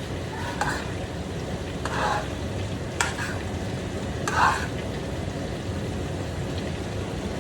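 Food frying in a pan with a steady sizzle, while a utensil stirs and scrapes in the pan four times in the first half.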